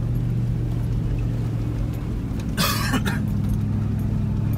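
Toyota Land Cruiser 100's V8 engine running steadily at low speed, heard as a low drone inside the cabin on a dirt track. About halfway through, a brief harsh noise cuts in for half a second.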